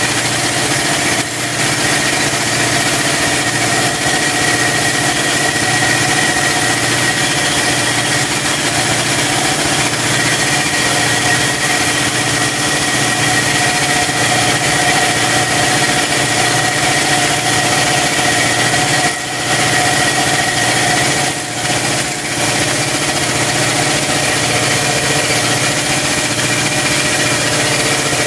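A motor or engine running steadily, a constant hum with a high whine on top and a few brief dips in level.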